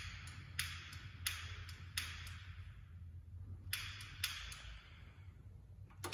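A series of sharp taps that ring on briefly in a large reverberant church, coming about every two-thirds of a second at first, then two more a little past the middle and one at the very end, over a steady low hum.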